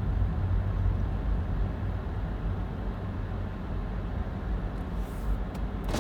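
Steady low rumble of a front-wheel-drive car driving on a snowy road, heard from inside the cabin, easing a little toward the end.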